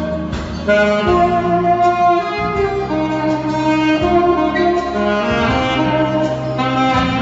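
Saxophone playing a melody of held notes that change pitch about every half second to a second, over an accompaniment with a bass line.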